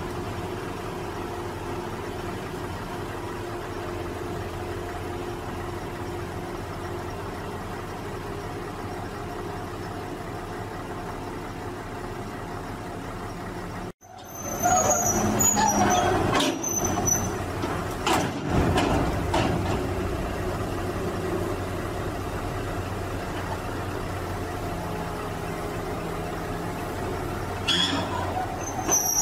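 Diesel engine of an amphibious excavator running steadily as the machine crawls onto a lowbed trailer. About halfway through, the sound drops out for a moment and comes back louder, with knocks, clanks and high metallic squeals from the pontoon tracks shifting on the steel trailer deck.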